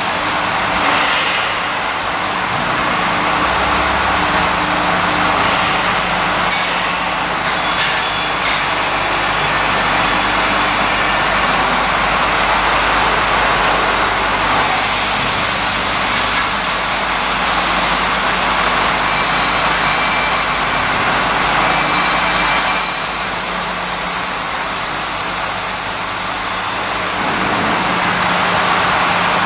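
Aluminium end milling machine running: a steady motor hum under a loud, dense hiss of the cutter milling the end of an aluminium profile, growing brighter about 15 seconds in and again about 23 seconds in.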